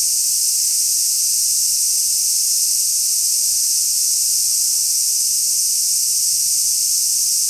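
Large brown cicadas (aburazemi, Graptopsaltria nigrofuscata) singing: a loud, steady, high-pitched sizzling drone with no break.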